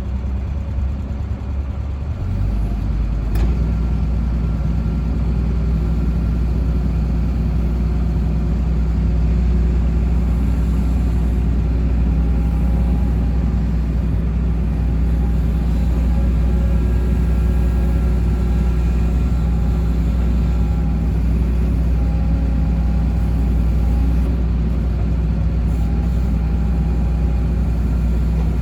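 Diesel engine of a Kobelco SK135SR-2 track excavator running steadily, its note stepping up a couple of seconds in. There is a single sharp click about three seconds in.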